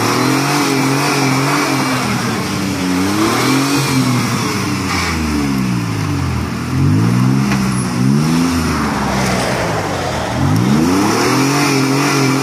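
Nissan Xterra's engine revving up and falling back about four times as the SUV strains to drive out of deep mud where it is stuck.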